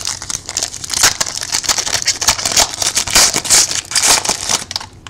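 Foil trading-card pack wrapper crinkling and rustling as it is handled, a dense run of crackly rustles that dies down near the end.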